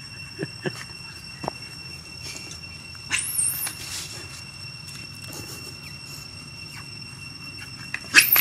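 Baby macaques squealing: a shrill squeak sweeping upward about three seconds in, and a louder one near the end, over a faint steady high whine and a few small clicks.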